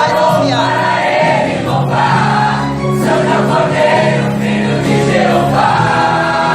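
Choir singing a gospel hymn with musical accompaniment, voices held in sustained notes.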